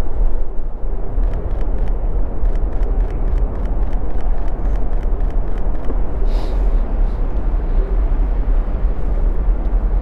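Strong gusty wind buffeting the microphone, a heavy low rumble throughout. From about a second in until about six seconds in, a run of quick clicks comes through, about four a second.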